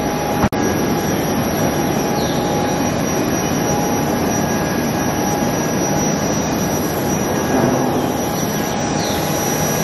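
Jet engine running nearby: a steady loud roar with a thin, high steady whine over it. A single sharp click about half a second in.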